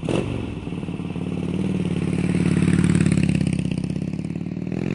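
Motorcycle engine running with a rapid, even pulse, swelling louder toward the middle and easing back toward the end.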